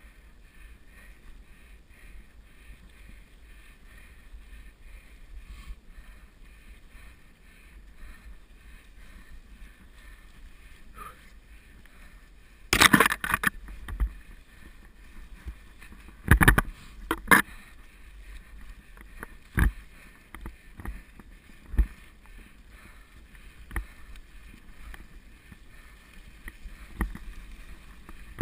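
Mountain bike riding over a leaf-covered forest singletrack: a steady rumble of tyres on the trail and wind on the mount. About halfway through come several loud rattling knocks of the bike and camera over bumps, then single sharp knocks every couple of seconds.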